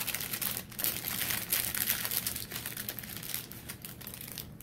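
Thin clear plastic bag crinkling in the hands as small plastic food picks are pulled out of it. A dense run of crackles that thins out near the end.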